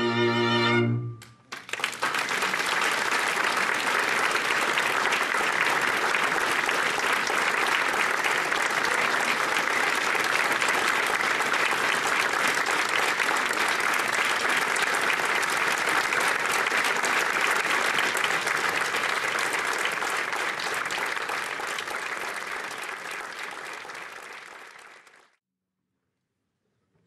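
A string ensemble's final held chord ends about a second in, followed by steady audience applause that fades out near the end.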